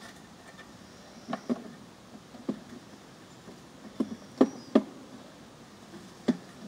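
A series of irregular knocks and bumps, about seven in all, the loudest coming in a quick group a little past the middle: a beekeeper on a ladder knocking a bee swarm cluster off a tree branch into a catch container.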